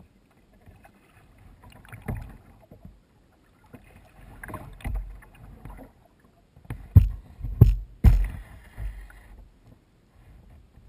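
Kayak paddling: water swishing and splashing in uneven swells every couple of seconds, with two sharp knocks a little past halfway.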